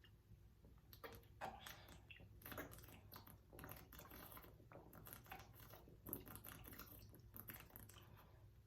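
Faint, irregular gulping and swallowing, about two gulps a second, as Miller Lite beer is chugged in one go.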